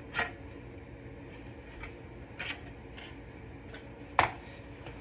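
A few scattered light knocks and clinks of kitchen items being handled and set down, the loudest about four seconds in, over a steady low hum.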